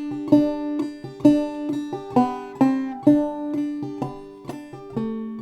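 Clawhammer banjo in open G tuning, played slowly in the bum-diddy rhythm: picked notes on the first string, each sharp attack ringing on, with the strong beats about once a second.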